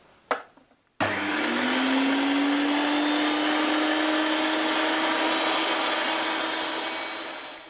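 Electric meat grinder switched on about a second in, its motor whine rising as it spins up and then running steadily as fish fillet and onion are pushed through it for mince. The sound dies away near the end.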